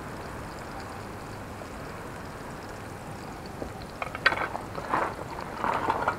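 Sliced onions frying in a pan over a small wood-burning stove, a steady sizzle while a fork stirs them. From about four seconds in, a few knocks and clatters as a wooden cutting board and utensils are handled.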